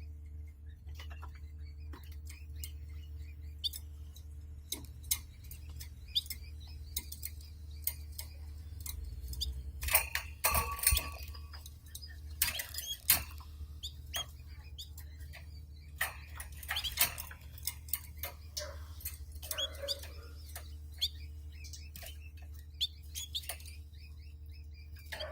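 Canaries moving about their cage and nest: scattered clicks and taps, with busier clusters now and then, and a few short chirps rather than full song. A steady low electrical hum runs underneath.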